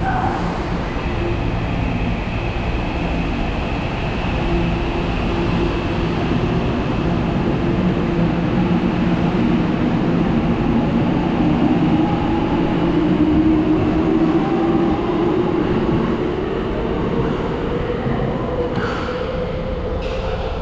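Tokyo Metro Marunouchi Line train running: a steady rumble of wheels on rail, with the traction motors' whine slowly rising in pitch as the train gathers speed.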